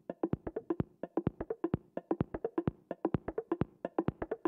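Background music of quick percussive taps, about seven a second, each with a short hollow ring.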